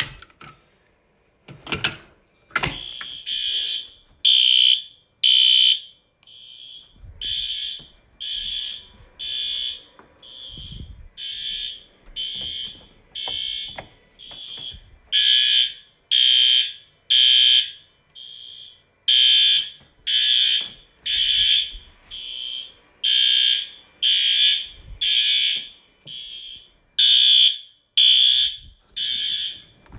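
A few sharp clicks as a fire alarm pull station is pulled, then several fire alarm horns sounding: loud, harsh blasts repeating about once or twice a second, the first three in a group followed by a pause, with some blasts louder than others.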